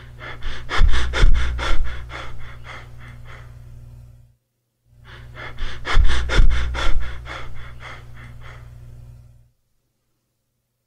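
Demonstration of Cheyne-Stokes respiration: a run of rapid breaths that grows louder and then gradually fades, heard twice, with a short breathless pause between the runs and a longer one after the second. This waxing-and-waning pattern with periods of apnea is the sign of cardiac damage such as congestive heart failure. A steady low hum runs under the breathing.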